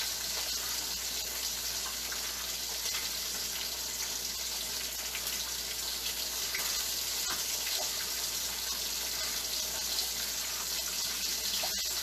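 Seabass frying in oil in a pan, a steady sizzle, with faint crackles of papery garlic skin being peeled.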